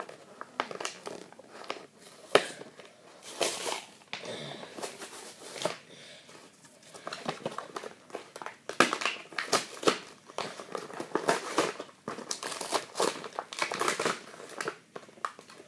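Plastic blister packaging and its cardboard card being pulled open and handled: irregular crinkling and crackling, with many sharp clicks of the plastic.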